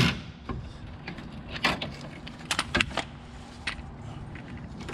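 Hand tools clinking and knocking against metal: a handful of short, sharp clicks spread over several seconds as a wrench is worked on a suspension bolt, over a faint steady low hum.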